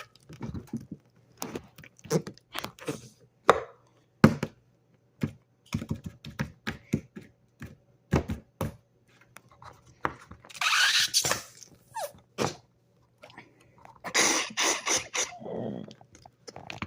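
Flarp noise putty being pressed and squished in its tub, giving a string of short squelches and pops, with two longer squelches about ten and fourteen seconds in.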